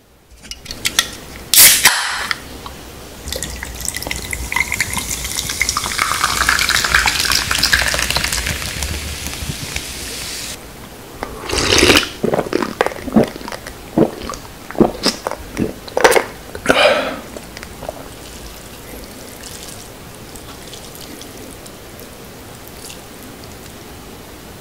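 A sharp click, then orange soda poured over ice into a glass for several seconds, stopping abruptly, followed by a run of gulps as the soda is drunk.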